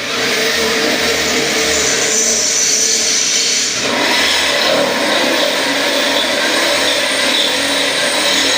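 Handheld power tool running steadily on metal tray stock, its sound shifting about four seconds in.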